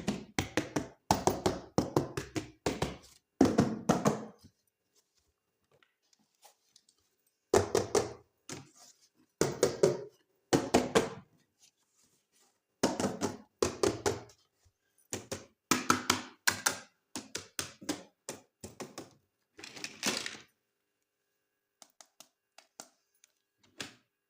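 Hard plastic toy pieces or packaging being handled: quick runs of clacking taps and knocks. They come in several bursts separated by short pauses of a few seconds.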